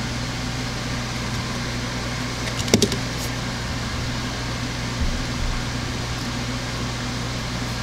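Steady background hum in a workshop, even and unchanging. A short sharp click about three seconds in comes from handling hand crimping pliers as a ring terminal is crimped onto a wire.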